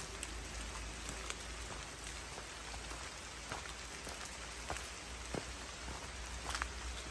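Light rain falling steadily through the woods, with irregular sharp ticks of single drops landing close by.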